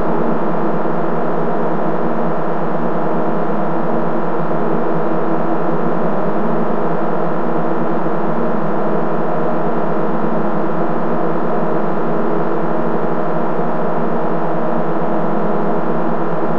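Drones from the DIN Is Noise software synthesizer: a dense, steady cluster of many sustained tones built on B-flat, D-flat, E-flat, E, F and A-flat.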